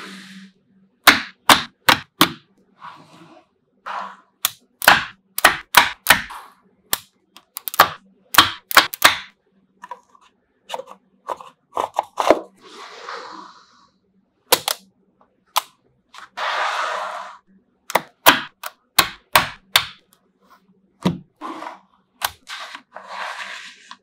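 Small magnetic balls clicking sharply as they snap together and are pressed into place, many clicks at an uneven pace. There are a few short stretches of rustling as the strips of balls are handled.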